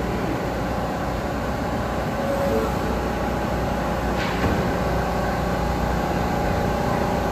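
R160 subway train standing at the platform with a steady hum from its equipment. A two-note door chime sounds about two and a half seconds in, and the doors close with a short knock a little after four seconds.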